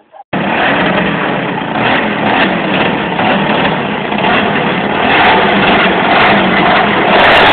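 Two-stroke chainsaw engine powering a homemade snowblower, running loud and steady. It cuts in suddenly just after the start and wavers a little in loudness.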